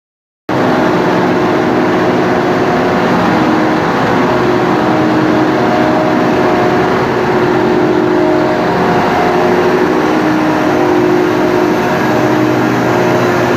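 A machine's engine running loud and steady at constant speed on a test run, with a steady droning pitch that wavers only slightly. It starts abruptly about half a second in.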